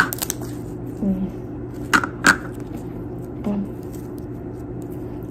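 Pink slime being stretched and squeezed by hand, giving a few sharp sticky pops: one at the start and two more about two seconds in.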